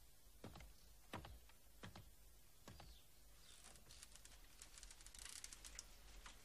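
Near silence with faint clicks. At first there is about one every three-quarters of a second, then a quicker run of light ticks over the second half.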